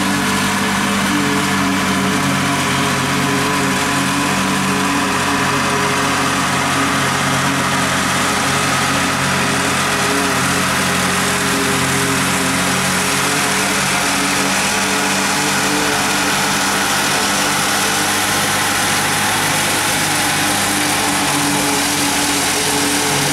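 International Harvester tractor engine running steadily under load, driving a pull-type forage harvester that is chopping standing corn into silage. It is heard through a vehicle cab's window.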